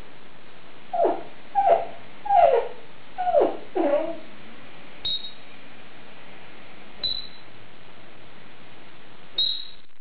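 Congo African grey parrot mimicking speech in a run of short syllables that fall in pitch, then giving three short, high whistled beeps a couple of seconds apart.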